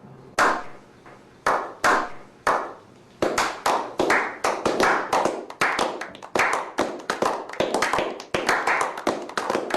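Exhaust of a V8 pickup fitted with long-tube headers, true duals, an X-pipe and a Cherry Bomb Vortex muffler, giving a string of sharp claps. They come singly at first and then faster, several a second in the second half. This is the "clappy", "clapped out" exhaust note the owner dislikes.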